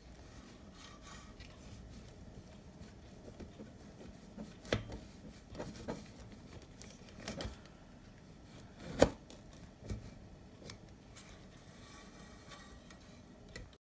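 Soft, scattered knocks and clicks of a knife against a stainless steel cake ring and slotted cake divider while a chilled cheesecake is cut into slices; the loudest knock comes about nine seconds in.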